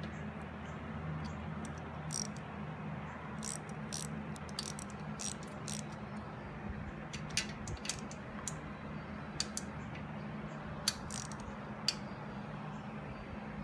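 Ratchet wrench clicking in short, irregular runs as rocker box bolts are run down, over a steady low hum.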